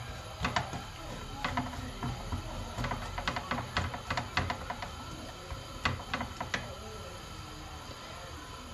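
Wooden spoon knocking and scraping against a frying pan as sliced onions and green peppers are stirred in hot oil, with a steady frying sizzle underneath. The knocks stop after about six and a half seconds, leaving only the sizzle.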